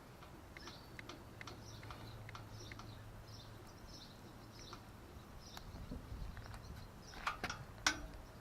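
Faint bird chirps repeating over a low steady hum, then two sharp clicks about seven and eight seconds in.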